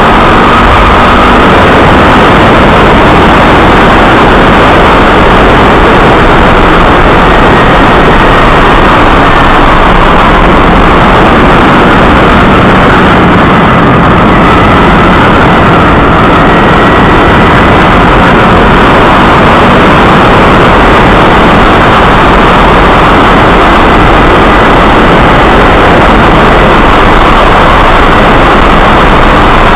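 Kawasaki Ninja 250R's parallel-twin engine running steadily under way, buried in loud, constant wind and road rush on the camera.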